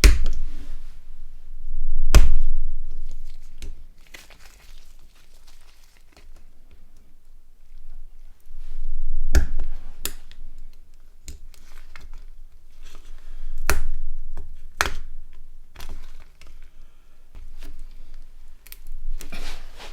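Small parts being prised out of a Nokia N80's plastic body shell: scattered sharp clicks and knocks a few seconds apart, with faint crinkling and scraping between them.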